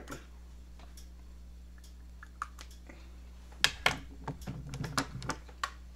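Small plastic clicks and knocks of makeup products being rummaged through and handled: a few scattered clicks at first, then a busier cluster of sharper knocks in the second half.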